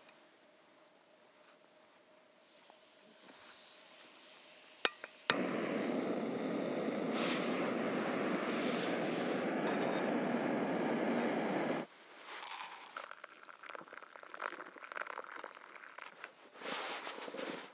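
Backpacking gas canister stove being lit: gas hisses from the opened valve, two igniter clicks, then the burner catches with a sudden whoosh and runs with a steady loud rush until it cuts off about twelve seconds in. Then handling sounds, and hot water is poured from a collapsible kettle into a collapsible cup near the end.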